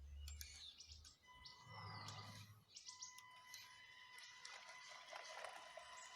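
Faint bird chirps against a quiet background, with a faint steady high tone.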